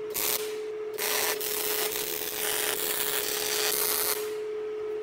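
Wire-feed welder arc crackling as the steel table surface is tack-welded to its supports: a short burst under a second long, then a longer weld of about three seconds. A steady hum runs beneath.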